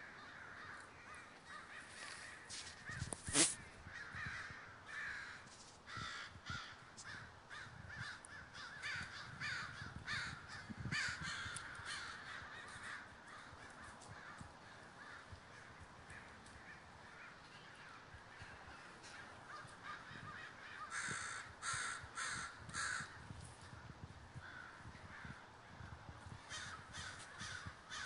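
A large flock of American crows cawing over one another continuously as they gather to roost, with a run of four louder, closer caws about three-quarters of the way through. A single brief sharp sound stands out about three seconds in.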